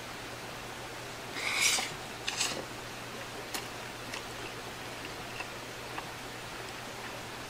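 A man chewing a mouthful of nori-wrapped rice ball, with a few faint mouth clicks. A short hissing rustle, the loudest sound, comes about one and a half seconds in, followed by a shorter one.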